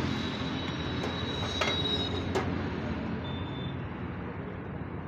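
Steady hiss of an egg omelette frying in an iron pan over a lit gas burner, with a few light clicks of utensils against the pan about one to two and a half seconds in.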